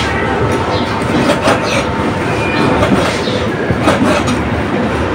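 Cleaver chopping raw pork on a thick wooden chopping block: a run of irregular knocks as the blade strikes through the meat into the wood.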